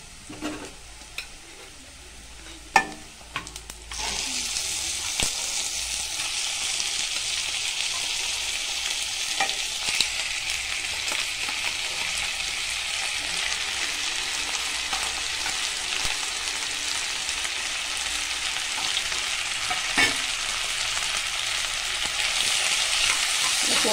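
Boiled mutton pieces frying in hot oil with fried onions in a nonstick kadai. After a few sharp clicks, a loud sizzle starts suddenly about four seconds in as the meat hits the oil, and it keeps on steadily, with occasional clicks from a slotted spatula stirring.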